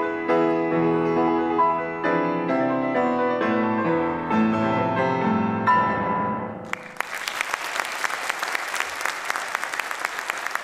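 Grand piano playing the final bars of a solo piece, closing on a chord about six and a half seconds in. The audience then breaks into applause that keeps going.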